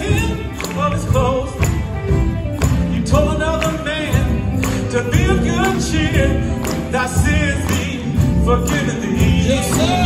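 Male gospel quartet singing live over electric guitar, bass guitar and drums, with a steady beat.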